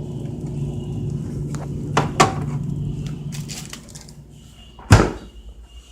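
Steady low hum that fades out about four seconds in, two light clicks about two seconds in, then a single sharp knock like a door or cupboard closing.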